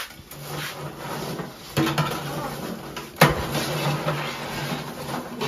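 Metal tongs and fried pieces clacking against a steel tray, with two sharp knocks about a second and a half apart, over a steady hiss.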